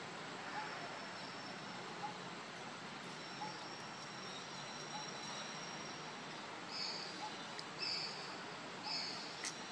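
Outdoor ambience: a steady hiss with a faint high, insect-like tone, and faint soft pips about once a second. Near the end come three short high-pitched chirps about a second apart, then a sharp click.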